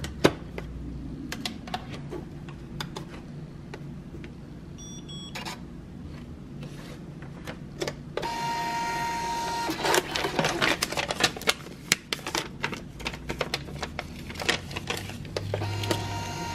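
Nemonic thermal sticky-note printer feeding paper: its small feed motor whirs steadily for about a second and a half a little past halfway, then again near the end. Clicks and rattles of handling the printer and paper come before and between.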